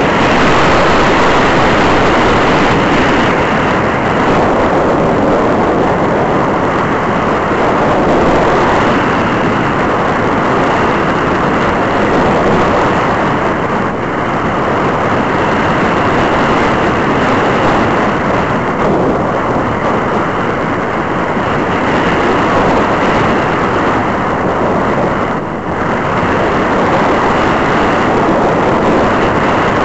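Steady loud rush of wind over an onboard camera on a powered glider in flight, with no clear motor tone above it; the noise dips briefly near the end.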